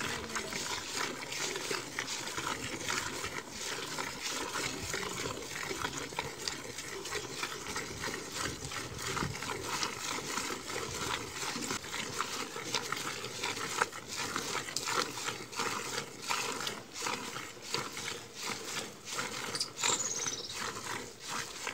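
Cow being hand-milked: jets of milk squirt into a steel bucket in quick, steady spurts.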